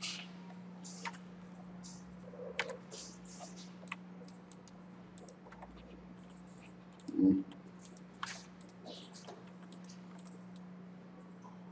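Scattered computer keyboard key presses and mouse clicks, irregular and light, over a steady low electrical hum, with one short, louder low sound about seven seconds in.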